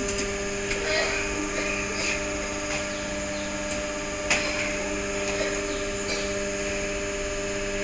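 Vertical two-station footwear injection molding machine running with a steady hum made of several tones, with scattered light clicks and a sharp knock about four seconds in.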